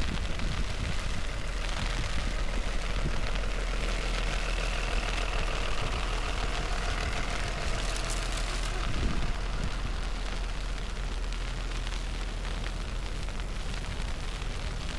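Snowy city street noise: a steady low rumble with vehicle engines running, and faint wavering tones in the middle of the stretch.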